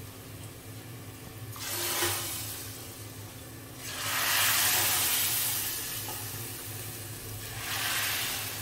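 Hot oil with fried cumin poured from a frying pan into a pot of dal, sizzling as it hits: a tadka (tempering). The sizzle comes in three bursts, the biggest about four seconds in.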